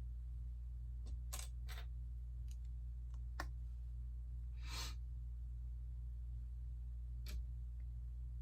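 Lego pieces being handled and pressed together: a few scattered short plastic clicks, with a longer rustling click about five seconds in, over a steady low hum.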